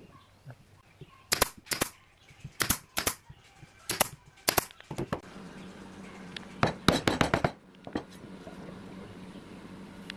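Hardwood mallet knocking on the pine legs of a stool frame: sharp wooden knocks, mostly in pairs, with a quick run of blows about two-thirds through, as the legs are tapped square into the seat. A steady low hum comes in about halfway.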